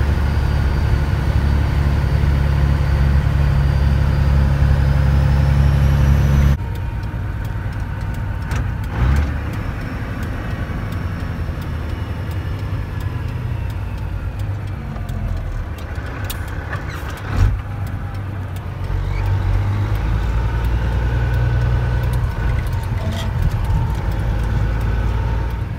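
Tri-axle dump truck's diesel engine running as the truck drives along, heard from inside the cab as a loud, steady low drone. The sound drops suddenly to a lower level about six seconds in, and there is a short sharp knock about two-thirds of the way through.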